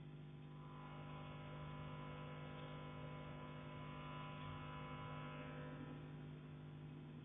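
Faint, steady electrical-sounding hum with a buzzy edge. No knock is heard.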